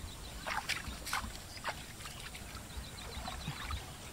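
Shallow water splashing and sloshing around a mesh fishing net being worked by hand, with several short splashes in the first two seconds.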